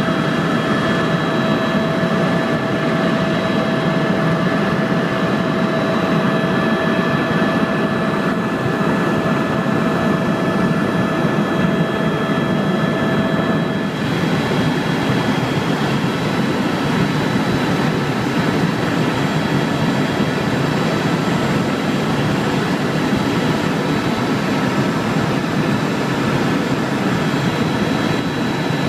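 Sightseeing helicopter in flight: a loud, steady drone of engine and rotor with several steady high whines above it. The sound changes abruptly about halfway through, and one whine drops out.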